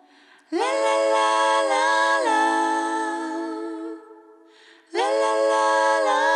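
A cappella background music: several layered voices singing sustained chords in two phrases, with a short gap about four seconds in.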